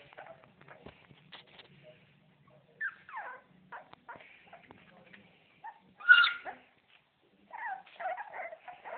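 Four-week-old Staffordshire Bull Terrier puppies whimpering in short, high calls, with one louder squeal about six seconds in.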